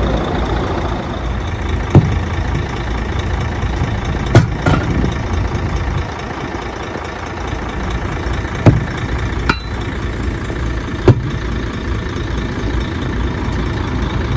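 Heavy truck engine idling with a steady low rumble. About half a dozen sharp knocks come a few seconds apart, the loudest things heard.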